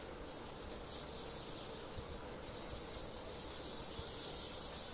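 Crickets chirring in a steady high trill, a little louder toward the end.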